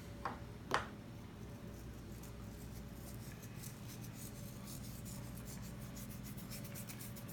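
Salt being sprinkled over sliced raw tuna: faint, rapid high ticks, with two sharp clicks in the first second.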